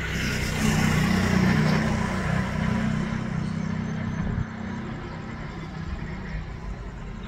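Low, steady rumble of an approaching locomotive-hauled passenger train. It is louder for a few seconds and eases off a little about four seconds in.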